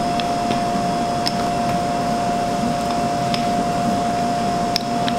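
Wooden rolling pin rolling out pie dough on a floured wooden board, with a few light knocks. Under it runs a steady machine hum with a constant mid-pitched whine.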